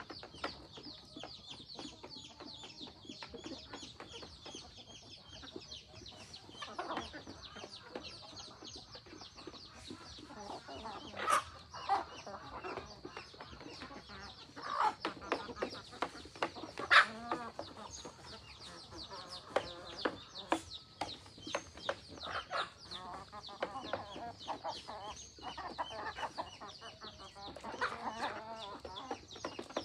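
A flock of free-range chickens clucking on and off, with scattered short sharp clicks or knocks, the loudest about 11 and 17 seconds in, and a faint steady high hiss behind.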